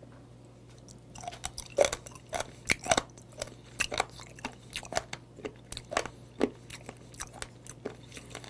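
Close-miked chewing of raw warty sea squirt (mideodeok): crisp, wet crunches, about two a second, starting about a second in. The firm, tough skin side of the sea squirt gives the crunch.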